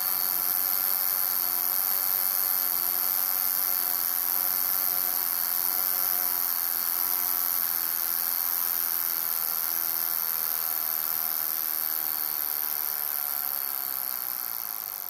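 Mechanical wristwatch alarm of a Vulcain Cricket buzzing continuously, a shrill steady buzz that fades near the end as the alarm runs down.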